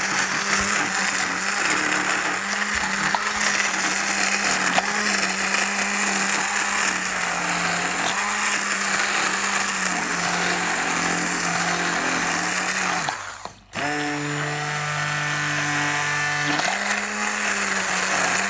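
Handheld immersion blender running in thick chocolate cake batter with a steady motor whine. About 13 seconds in it stops for a moment, then restarts at a lower pitch for a few seconds before rising back to its first pitch.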